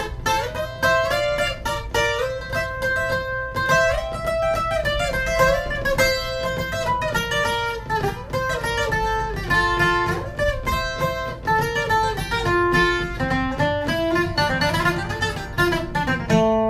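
Acoustic guitar capoed at the third fret, playing a fast picked requinto ornament (adorno) in a D shape that sounds in F. Quick single notes and pairs of notes step up and down and ring over one another.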